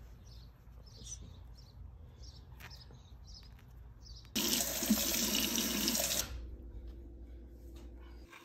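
Faint rustling while the dove's feathers are plucked. Then a tap runs for about two seconds, starting and stopping abruptly: water rinsing the dressed meat at a kitchen sink.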